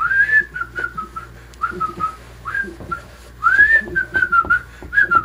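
A person whistling a tune in short phrases, the notes often sliding up into pitch.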